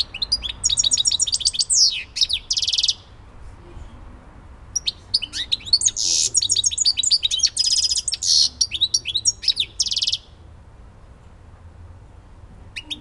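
European goldfinch singing: rapid liquid twittering broken by dense buzzy trills. It sings two bouts, a short one at the start and a longer one from about five seconds to ten seconds in, then goes quiet briefly before starting again right at the end.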